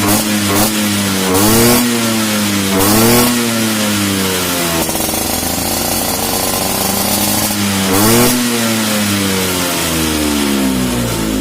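Vespa Sprint's stock two-stroke single-cylinder engine running through an AJS racing exhaust, being revved: quick blips at first, then repeated revs that rise and fall, a longer held stretch in the middle, and the revs dropping away near the end.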